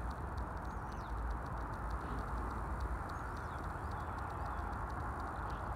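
Faint bird chirps and quick ticking calls over a steady low rush of background noise.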